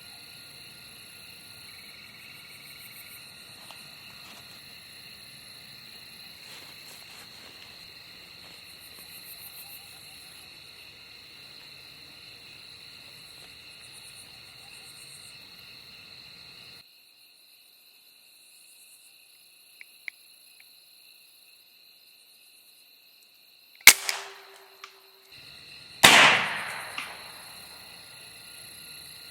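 Crickets and other night insects chirping steadily, fainter in the second half. Near the end come two sharp cracks about two seconds apart from a .50 calibre Dragon Claw air rifle being fired; the second crack is the louder and is followed by a short ringing tail.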